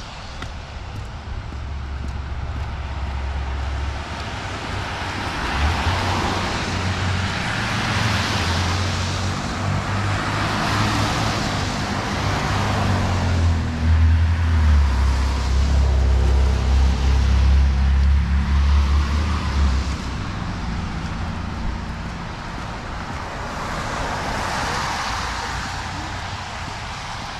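Road traffic: several cars pass one after another, each a swell of tyre hiss on the wet road that rises and fades, over a heavy low rumble from about five to twenty seconds in.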